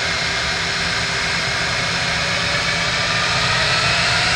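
Airbus A320's two IAE V2500 turbofan engines spooling up to takeoff thrust on the runway. Steady jet noise with a whine that slowly rises in pitch and grows slightly louder.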